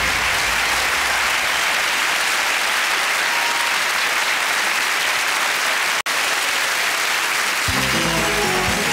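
Studio audience applauding, a steady even clatter, with music coming in under it near the end. The sound cuts out for an instant about six seconds in.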